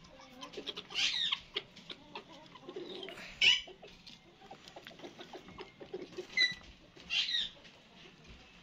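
Four short high chirps from birds, about a second in, at three and a half seconds, and twice near the end, over light ticking of a naked-neck Aseel rooster pecking grain from a clay dish.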